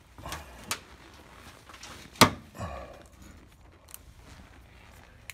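Handling noises from a hand and phone working under a car's dashboard: a few light clicks and rustles, with one sharp knock a little over two seconds in.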